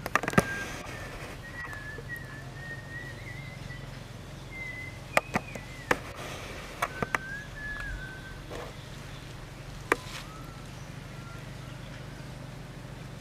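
Thin, wavering whistle-like animal calls at a high pitch, drawn out and broken into short phrases, with a handful of sharp clicks, most of them in the middle.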